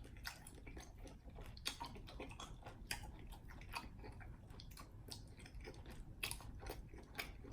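A person chewing food close to the microphone, with faint, irregular wet clicks and smacks of the mouth.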